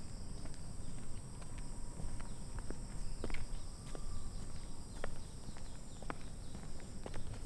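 Footsteps of a person walking, heard as irregular light taps, over a steady high-pitched chirring of evening insects and a low rumble.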